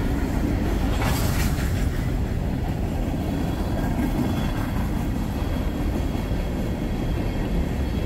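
Norfolk Southern freight train's tank cars and covered hoppers rolling past: a steady low rumble of wheels on rail, with a brief clatter about a second in.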